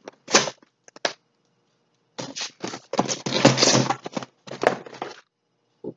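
Packaging rustling and scraping as a box is unpacked by hand, in irregular bursts: a few brief ones at first, then dense handling from about two seconds in to about five.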